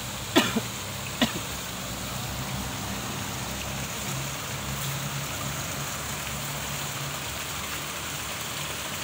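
Steady hiss of running water into a fishing pond, with two short, sharp sounds about half a second and just over a second in.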